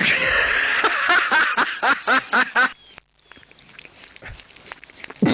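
A rapid series of short animal calls, about four a second, over a noisy background. It stops abruptly about three seconds in, leaving a much quieter stretch with a few faint clicks.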